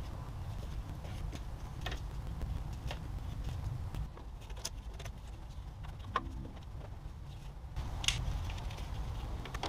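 Hand work on engine intake parts: scattered clicks and light knocks of plastic and rubber pieces being handled and fitted, the loudest about 8 seconds in, over a steady low rumble.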